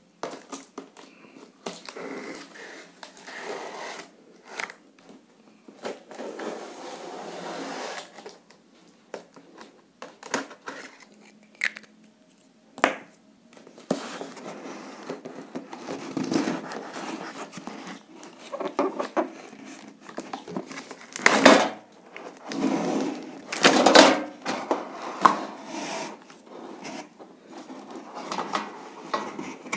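A cardboard shipping box being handled and opened by hand: scraping and rustling of cardboard, broken by sharp knocks and thumps, the loudest about two-thirds of the way through.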